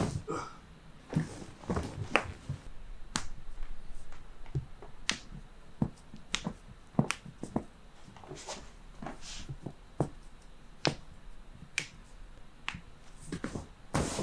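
Joints cracking and popping under chiropractic neck adjustments: more than a dozen short, sharp snaps at irregular intervals.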